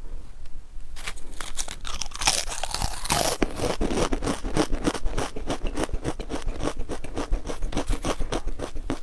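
Crisp stacked potato chips being bitten and chewed close to the microphone: a rapid run of dry crunches, several a second, starting about a second in.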